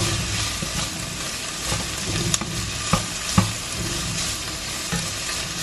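Pork cubes and onions sizzling in a hot frying pan as they are stirred with a spatula, with three sharp clicks around the middle of the stirring.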